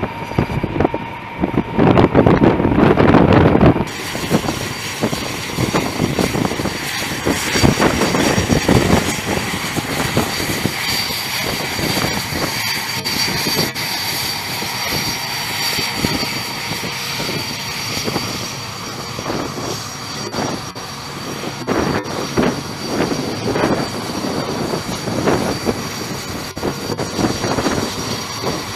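Flight-deck jet engine noise: a steady high whine over a rushing roar and wind on the microphone, much louder and lower for the first four seconds before it drops off abruptly.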